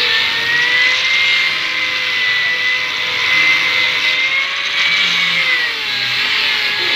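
Handheld electric grinder running on a sofa, a steady high motor whine over a grinding hiss, its pitch wavering with the load and dipping briefly near the end.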